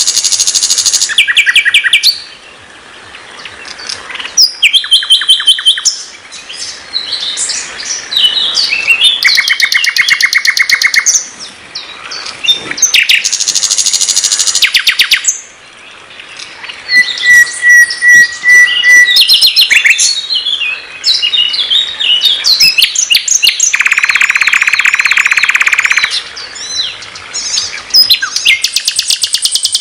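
Nightingale (sikatan londo) singing a long, varied song: rapid runs of repeated notes, rattling trills and clear whistled notes in separate phrases with short pauses between them, including a buzzy trill near the end.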